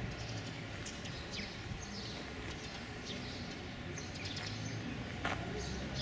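Small birds chirping in short, scattered high calls over a steady low background rumble, with one sharp click about five seconds in.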